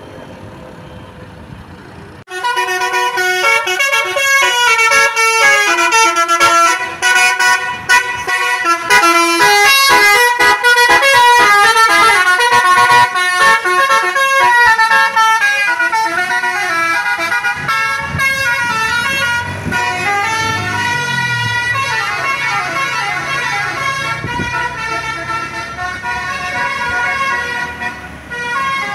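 Bus telolet horn (Basuri multi-tone air horn) playing a loud, fast melody of many short notes, starting suddenly about two seconds in. In the later part the notes slide up and down in pitch over a low engine rumble.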